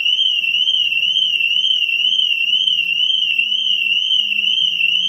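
BMW original SA302 anti-theft alarm siren sounding continuously: a super loud, high warbling tone that wavers up and down about twice a second. The alarm has been triggered by unlocking the door without the key, and it keeps sounding until the key is used.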